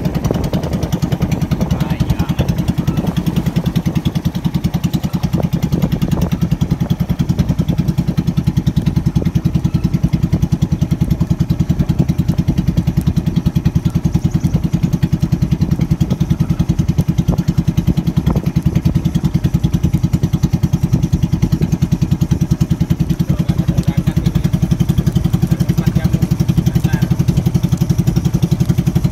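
Small wooden fishing boat's engine running steadily at cruising speed while the boat travels across the water, a low, even, fast-pulsing drone with no change in speed.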